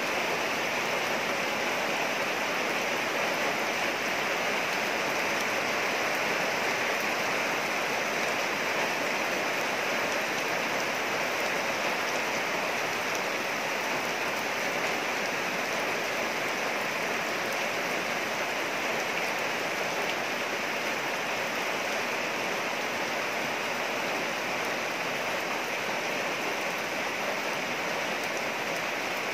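Steady rain falling on leaves and wet ground: an even, unbroken hiss.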